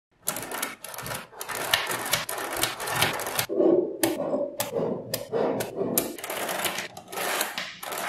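Small magnetic balls clicking and clattering as hands press, snap and roll them together: a dense run of sharp clicks with a few short pauses.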